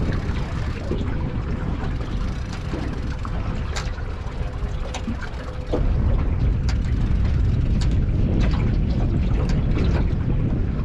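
Wind buffeting the microphone as a steady low rumble that gets louder a little over halfway through, with scattered light clicks over it.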